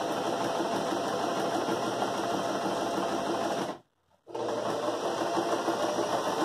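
Electric sewing machine running steadily, stitching a close zigzag (satin) stitch around a fabric appliqué. It stops for a moment about four seconds in, then runs again.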